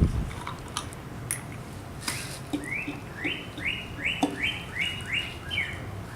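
A thump, a few clicks, then a rhythmic metal squeak about seven times, roughly two and a half a second, as a hand tool for changing the tire is worked in strokes.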